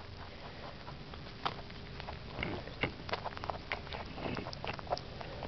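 A pet rabbit eating a cherry close to the microphone: a run of small, irregular clicks as it bites and chews.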